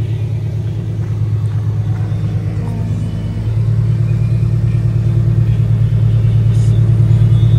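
Nissan 350Z drift car's engine idling with a steady low pulsing rumble, getting a little louder about halfway through.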